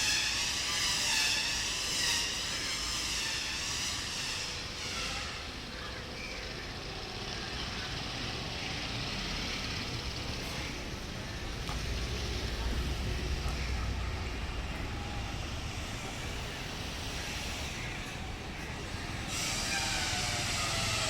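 Street traffic noise with indistinct voices. A vehicle's low rumble swells about twelve seconds in and fades a few seconds later.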